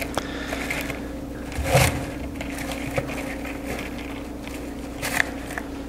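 Plastic hydroponic insert being pressed down hard into a 5-gallon bucket of pebbly growing medium: brief crunching scrapes about two seconds in and again near the end, with a small click between, over a steady low hum.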